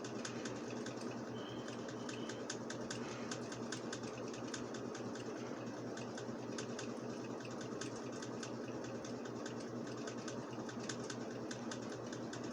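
Fast, uneven clicking of computer controls, many small clicks a second, over a steady low hum.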